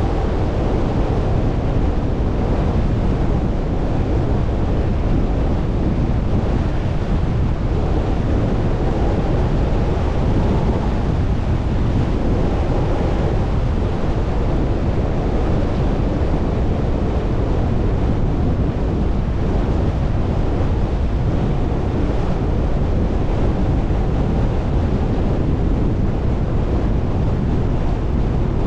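Steady low rumble of a vehicle driving along a road: tyre and road noise mixed with wind, even in level throughout.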